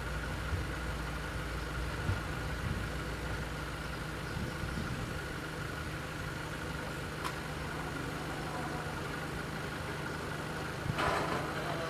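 Car engines idling steadily. Near the end, a louder rush of noise starts.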